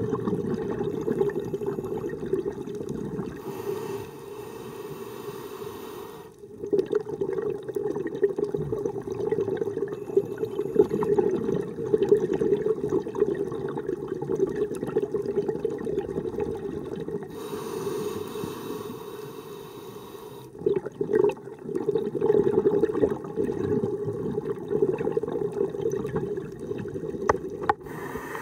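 Scuba diver breathing through a regulator underwater: long stretches of exhaled bubbles gurgling past, broken twice by a quieter hissing inhale, a few seconds in and again around two thirds of the way through.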